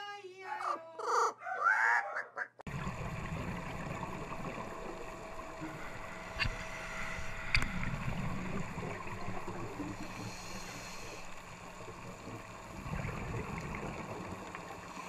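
An Amazon parrot calls in a short run of rising and falling squawks. About two and a half seconds in, it cuts to an underwater recording: a steady rumble and hiss of water with two sharp clicks.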